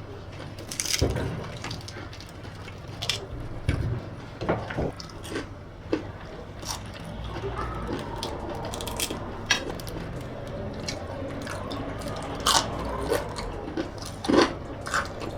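Someone biting and chewing crispy fried pumpkin flower fritters, with irregular crisp crunches.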